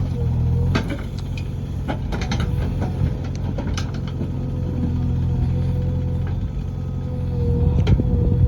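JCB backhoe loader's diesel engine running steadily, with scattered short knocks and clanks from the machine working.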